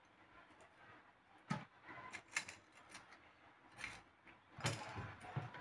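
Quiet, irregular clicks and rustles of fresh green chillies being pried open and their seeds pushed out by hand. The first second and a half or so is nearly silent.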